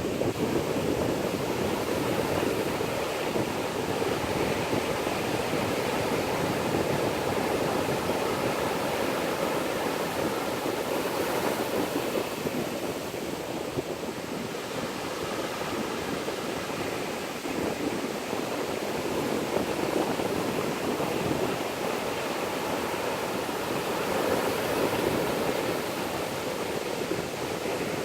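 Ocean surf: waves breaking and washing ashore in a steady rush that swells gently now and then.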